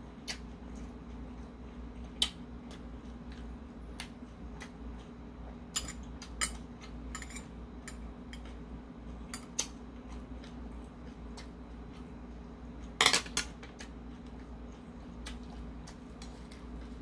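Metal spoon and chopsticks clicking and tapping against a porcelain bowl as food is picked up: scattered single taps, with a louder cluster of clinks about three-quarters of the way through. A steady low hum runs underneath.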